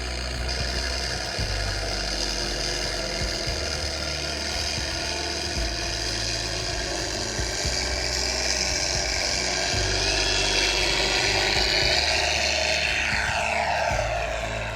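Radio-controlled P-51 Mustang model flying, its propeller whirring under the piston-engine sound effects from its onboard sound system. It gets louder about eight seconds in and drops in pitch as it passes near the end.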